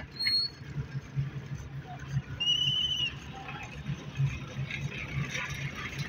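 Diesel engine running steadily with a low pulsing hum, from the tractor-drawn bitumen heater and sprayer. A short high warbling trill cuts in about halfway through, and scattered crackling sounds come near the end.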